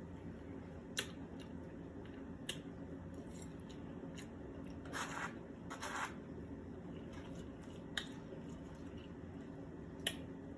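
Quiet eating of rice and corn: a few sharp clicks of a utensil against a plate and two short mouth noises about halfway through, over a steady low room hum.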